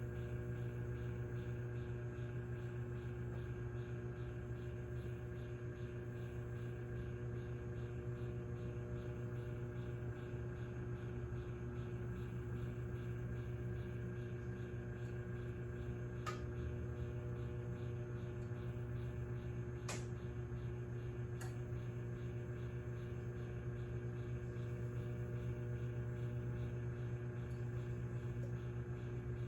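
Microwave oven running with its steady electrical hum while an egg heats inside. A few faint ticks come about two-thirds of the way through.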